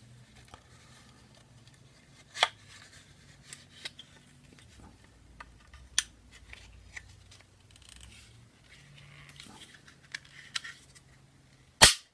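Parts of a KWA M11 airsoft gun's lower receiver being handled and fitted together by hand: a few sharp clicks and small snaps among quiet rubbing, the loudest snap just before the end as the part seats in place.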